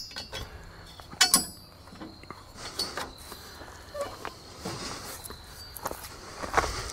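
A steel pin with a ring clip is pulled from a bracket on a compact tractor's front grille guard, clinking sharply once about a second in, followed by light knocks of hands on the metal guard. This frees the guard so the hood can be opened to reach the radiator screen.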